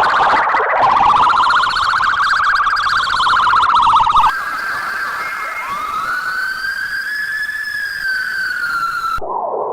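Siren sound effects cut back to back. The first is a siren rising in pitch with a fast warble; about four seconds in it cuts off abruptly. A smooth wail follows, rising and then slowly falling, before another abrupt cut near the end.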